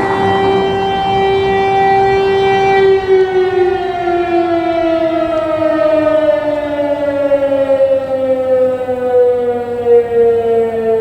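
Fire-brigade alarm siren sounding for a volunteer call-out: a steady wailing tone for about three seconds, then slowly falling in pitch as it winds down.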